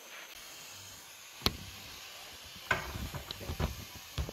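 Bernzomatic propane hand torch burning with a low, steady hiss while a spark plug is held in the flame to burn off carbon. A single sharp click comes about a third of the way in, and the last part holds a run of knocks and rattles from the pliers and plug being handled.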